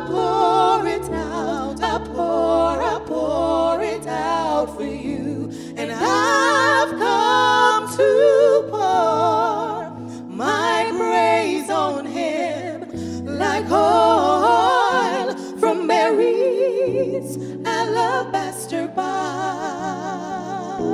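Two women singing a gospel worship song into microphones, their voices sliding through ornamented runs with heavy vibrato, over held accompaniment chords that change every few seconds.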